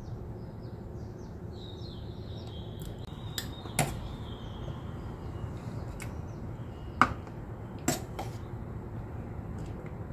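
Kitchenware being handled: a few sharp clicks and knocks, the loudest about four, seven and eight seconds in, over a steady low hum.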